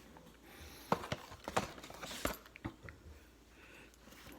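Handling noise as a karambit knife is picked over: several light, separate clicks and knocks in the first three seconds, then quieter.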